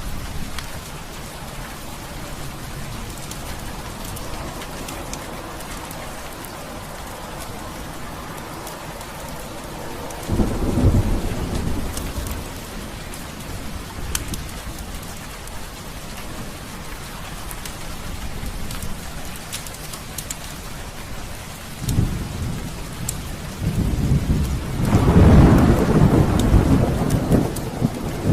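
Heavy rain falling steadily through a thunderstorm. Thunder rumbles in three times: about ten seconds in, again near twenty-two seconds, and then a longer, louder roll that builds near the end.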